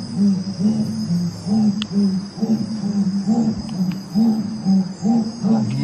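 Night insects chirring steadily and high, over a low call that repeats about two or three times a second without a break.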